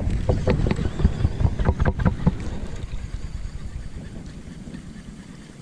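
Wind buffeting the microphone as a low, rumbling rush, with a run of short, light clicks and knocks in the first two seconds or so that then die away.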